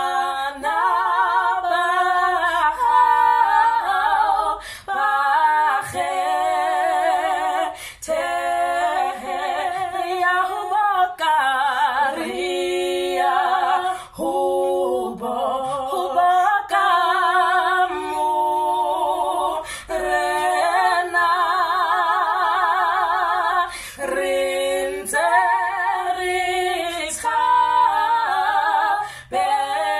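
Two women singing a cappella in harmony, a song in Sesotho, with wide vibrato on the held notes and short pauses for breath between phrases.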